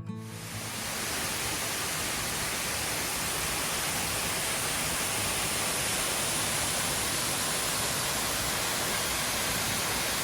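Steady rushing of a waterfall about 36 feet high, running with less water than after heavy rain, rising in over the first second and then holding even.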